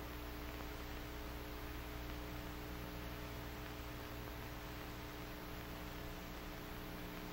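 Steady electrical hum with several fixed tones, under an even hiss: the background noise of an old film soundtrack, with no other sound.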